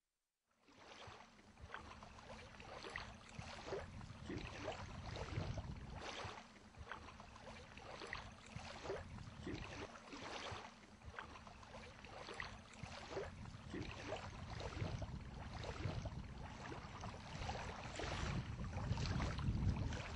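Footsteps walking on a wooden plank walkway, a light knock about twice a second, with wind rumbling on the microphone that grows stronger near the end.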